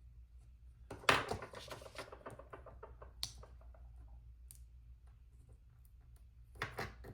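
Scissors cutting paper: a quick run of crisp snips starting about a second in, a single sharp click, then a short second cut near the end, trimming an uneven edge straight.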